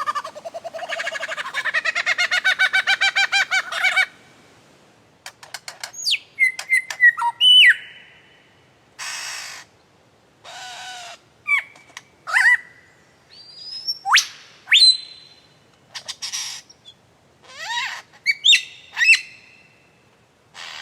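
A bird-call ringtone playing. It opens with a rapid pitched trill for about four seconds, then runs through a string of separate chirps, whistles gliding up and down, and short harsh squawks, with brief gaps between them.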